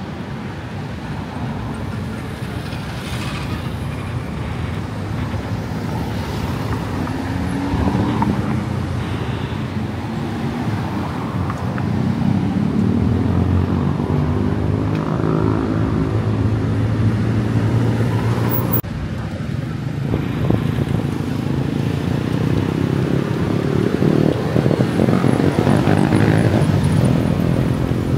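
City road traffic: vehicle engines running and passing close by, growing louder partway through.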